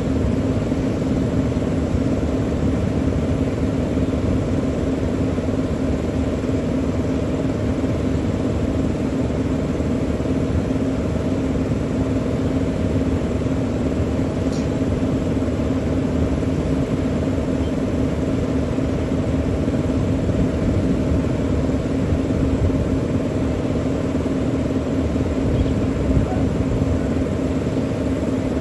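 A large engine or heavy machinery running steadily: an even, low drone with a strong deep hum.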